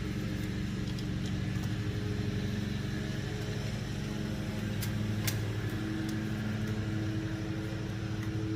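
Steady low mechanical hum from a running machine, with a few sharp light clicks about five seconds in.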